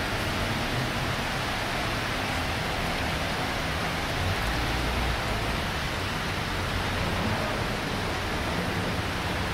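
Steady rushing wash of a flooded city street: motor traffic ploughing slowly through floodwater, with a low engine rumble underneath.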